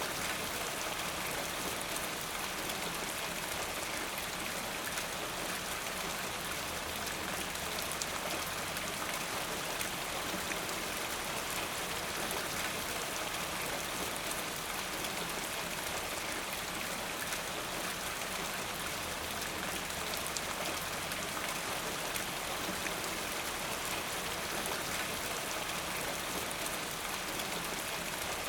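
Steady rain falling, an even hiss of many fine drops pattering on a surface.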